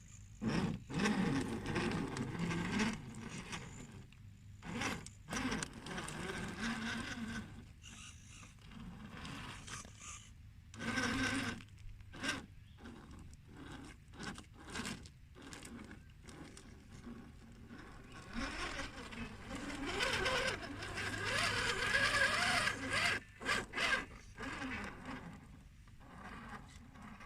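Radio-controlled rock crawler climbing over rock: its small electric motor and gears whine, rising and falling in pitch with the throttle, over the scrape and crunch of tyres and chassis on stone. Short clips are cut together, so the sound stops and restarts abruptly several times.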